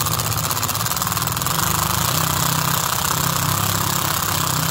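Power impact tool hammering steadily without a break, backing out the Torx fasteners on a Ford CP4 high-pressure fuel pump's housing.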